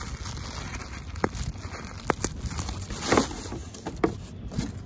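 Plastic bubble wrap being scrunched in the hands, crinkling, with a few sharp clicks and a short burst of crackle about three seconds in.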